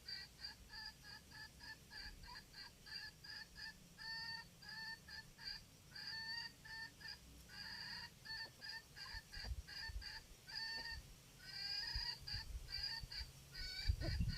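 A fowl calling in a fast, even run of short clucking notes, about four to five a second, with a few longer drawn-out notes mixed in partway through.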